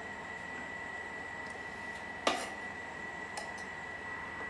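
Kitchen utensils handled at the stove: one sharp metallic knock a little over two seconds in, then two light ticks a second later, over a steady high-pitched electrical whine.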